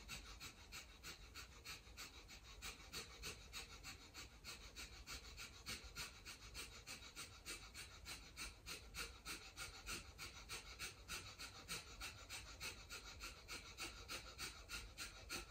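Kapalabhati (breath of fire) breathing: a quiet, even train of quick, forceful exhales through the nose, about three puffs a second.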